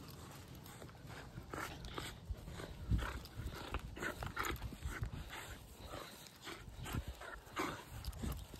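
Dog playing tug-of-war on a rope toy: short, irregular dog noises mixed with tugging and rustling sounds, with a louder thump about three seconds in.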